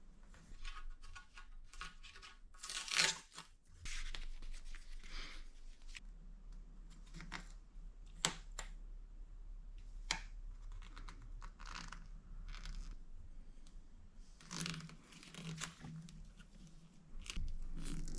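Handlebar tape being unrolled and wrapped, its adhesive backing strip peeling away with intermittent tearing and crinkling, plus a couple of sharp ticks.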